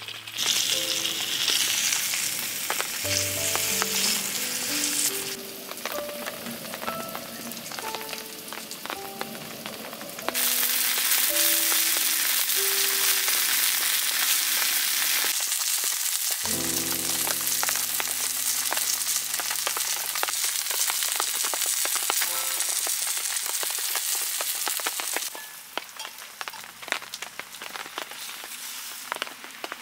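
Flour-dusted tofu cubes shallow-frying in oil in a small pan, a dense sizzle full of crackles that grows louder about ten seconds in and drops back near the end. Background music plays underneath.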